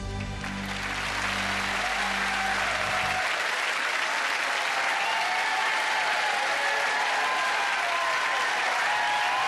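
Large studio audience applauding, swelling up as the band's final sustained chord rings out and dies away about three seconds in.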